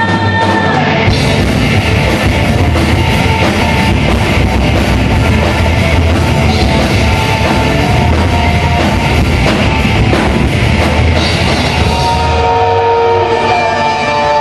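Live rock band playing loudly: a full drum kit and electric guitars driving through most of the stretch, with long held notes ringing over the band at the very start and again near the end.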